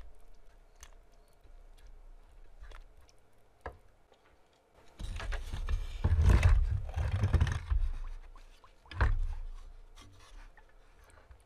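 Workshop handling sounds: scattered light clicks and taps, then a few seconds of rough scraping with a heavy low rumble about halfway through, and a sharp knock near the end.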